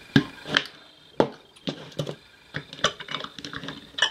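Irregular sharp metallic clicks and knocks, the loudest near the start and about a second in, as steel screwdriver blades are worked under the edge of a soldered-on metal cover to pry it loose.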